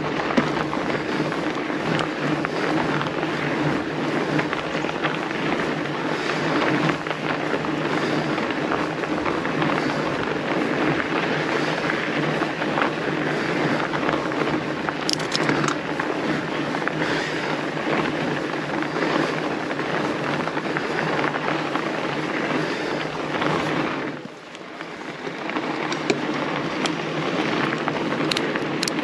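Fat bike's wide tyres rolling over a packed snow trail: a steady rolling noise with a low hum and fine crackle. It fades briefly for about a second near the end, then picks up again.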